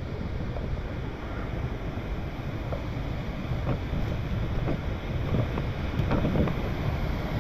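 Rushing rain-swollen water and wind buffeting the microphone, a steady low rumble with a few light knocks scattered through.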